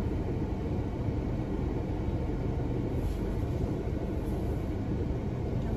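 Steady low rumble inside the cabin of a stationary car with the vehicle running at idle.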